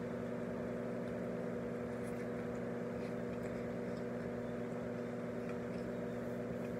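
Steady mechanical hum, a constant drone made of several low steady tones, with no change in level.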